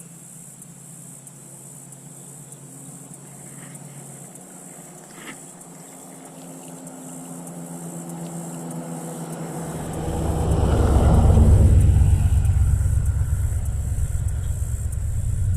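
A vehicle on the road drawing near and passing close by. It grows steadily louder, is loudest about eleven to twelve seconds in, and leaves a low rumble afterwards.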